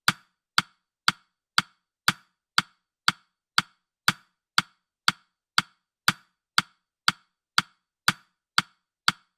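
Countdown timer tick sound effect: sharp, short clock-like ticks, evenly spaced at two per second.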